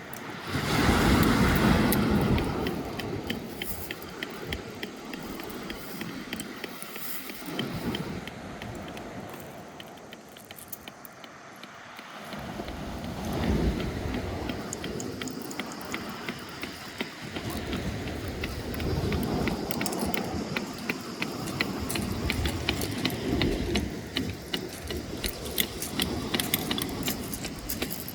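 Sea waves washing in and out on a pebble shore, swelling and easing every few seconds, with a fine clicking rattle of stones rolling in the backwash.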